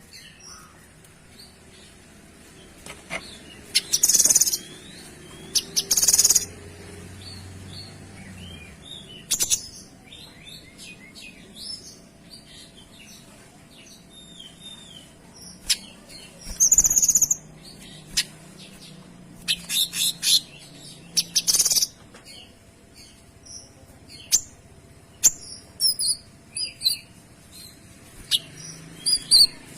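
Kinoy songbird singing: scattered short, high chirps broken every few seconds by loud, rapid bursts of high trilling, the fast, clear 'tembakan' phrases prized in a masteran tutor recording.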